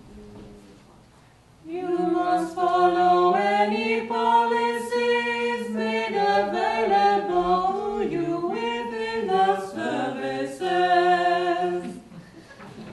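Unaccompanied vocal trio, one man and two women, singing together; the singing starts about two seconds in and stops about a second before the end.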